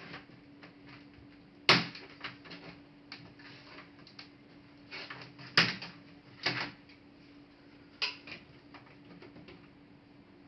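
Clicks and knocks of a Dell Inspiron N5110 laptop's parts being handled and taken apart: four sharp clicks about 2, 5.5, 6.5 and 8 seconds in among lighter ticks, over a faint steady hum.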